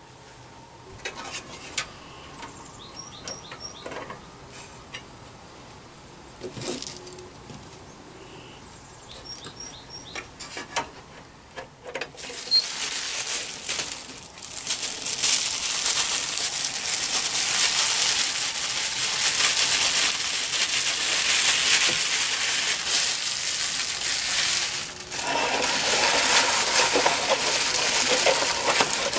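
A few light clicks and taps, then a long stretch of loud plastic crinkling and rustling with one short break: a sheet of bubble wrap being handled and folded around vacuum tubes to pack them.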